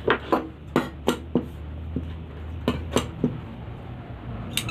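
A few sharp metallic clicks and taps, irregularly spaced, as a pair of tailor's scissors is picked up and handled on a wooden tabletop, with a faint steady low hum underneath.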